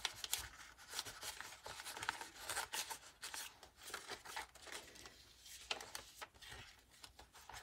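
Pages of a handmade paper-and-card junk journal being turned and handled: irregular rustling, sliding and crinkling of card and paper.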